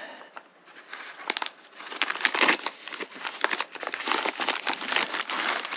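Packaging crinkling and rustling in irregular bursts as a part is unwrapped from its box, sparse at first and busier from about a second and a half in.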